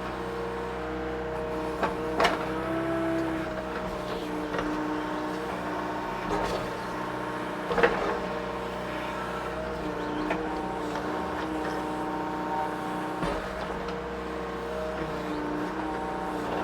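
Mini excavator's diesel engine and hydraulics running under load while digging out a large tree stump, the hydraulic whine shifting in pitch as the machine works, with a few sharp knocks, loudest about two and eight seconds in.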